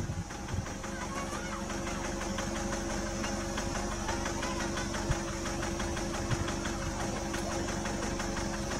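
A vehicle engine idling steadily close by, with an even fast chatter, and two brief clicks about five and six seconds in.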